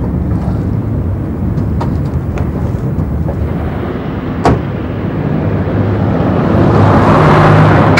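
A car engine runs steadily and a car door shuts with a single knock about halfway through. Near the end the engine grows louder.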